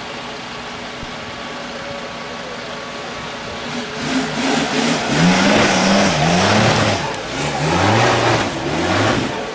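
Small off-road 4x4's engine running low and steady, then from about four seconds in revving hard, its pitch rising and falling again and again as it labours up a steep dirt bank.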